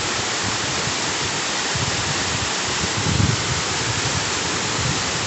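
Steady, dense rush of a waterfall's falling water, with irregular low rumbles underneath.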